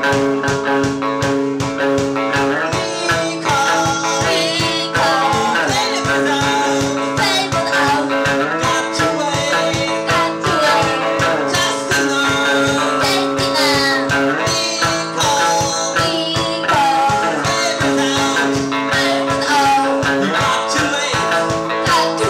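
Band playing rock music: guitar chords with sliding, bending lead notes over a steady beat.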